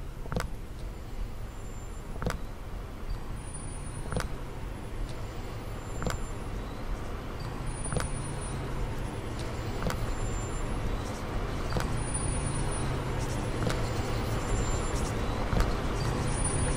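Electronic sound from a laptop and mixer played through PA speakers: a low rumbling drone with a sharp click about every two seconds, slowly getting louder.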